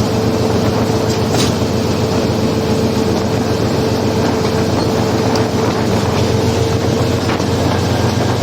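Diesel-hauled passenger train running steadily, a continuous rumble with a steady whine that sinks slightly in pitch and a few faint clicks from the wheels.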